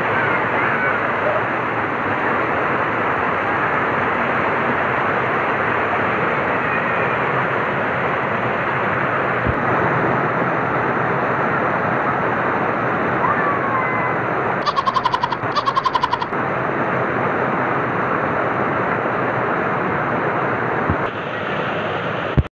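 River water rushing steadily over a concrete weir spillway, with children's voices faint beneath it. Two short rapid rattling bursts sound over it a little past the middle.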